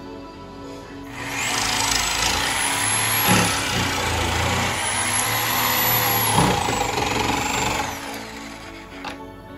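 Corded jigsaw cutting through a white-pine board. It starts about a second in, saws steadily with a high whine over the rasp of the blade for about seven seconds, then winds down near the end.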